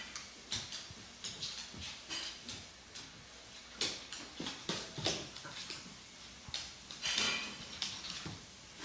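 Two dogs play-fighting: irregular scuffling and clicking, with a short high-pitched yip about seven seconds in.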